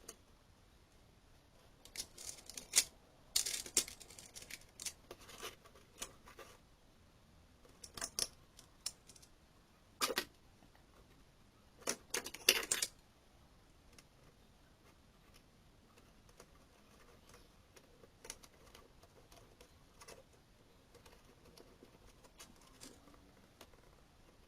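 Clicks, taps and scrapes of a switch-mode power supply's case and small parts being handled and fitted back together, in short clusters with quiet gaps between, the sharpest knocks about ten and twelve seconds in.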